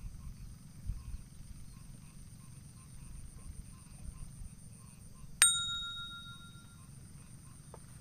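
A small bite-alarm bell on a fishing rod rings once, sharply, about five seconds in, and fades over a second or so: a fish taking the bait. Under it there is a steady high hum and a low rumble.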